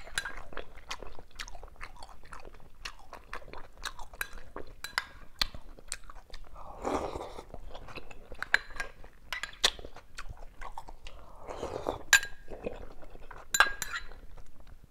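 Close-up eating sounds: chewing and crunching of soft-cooked cucumber and pork, with a metal spoon clinking against a ceramic soup bowl and a soft slurp of broth from the spoon about seven seconds in.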